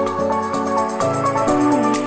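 Background music: melodic electronic keyboard tune over a steady beat.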